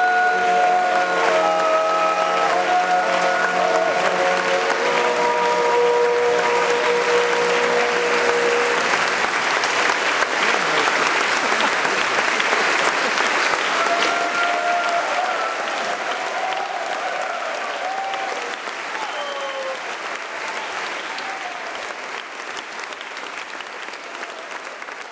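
Men's choir holding a final chord of several sustained notes, which ends about nine seconds in. The audience applauds throughout, and the applause fades out gradually over the last ten seconds.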